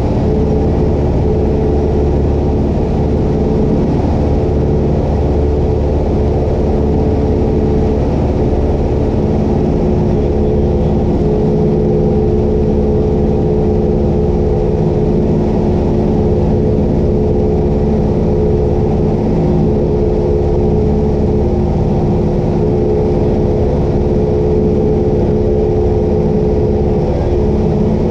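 Cessna 172 Skyhawk's piston engine and propeller droning steadily in cruise flight, heard from inside the cabin as a loud, even, muffled hum.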